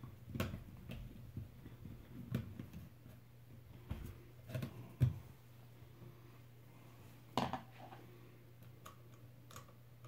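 Scattered small clicks and light knocks of a plastic outlet cover plate and its screws being handled and fitted over a wall outlet. The sharpest click comes about five seconds in, with a faint steady low hum underneath.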